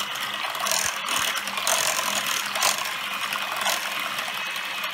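Electric hand mixer running, its twin beaters whisking a thin milk-and-egg custard mixture in a stainless steel pot with a steady whir and a rattle of beaters against the metal. The motor's whine begins to drop in pitch near the end.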